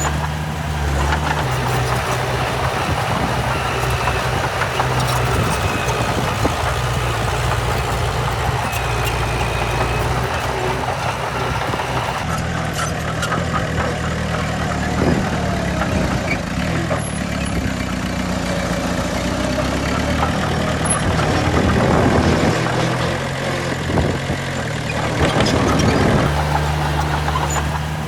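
Diesel engines of heavy earthmoving machines running steadily at work, a constant low drone that swells a little toward the end.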